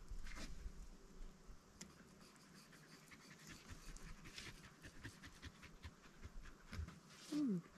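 Dog panting, with a short falling whine near the end.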